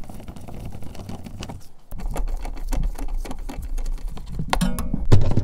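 Hand ratchet clicking rapidly as 8mm nuts on the inner fender liner are run off. A low hum comes in about two seconds in.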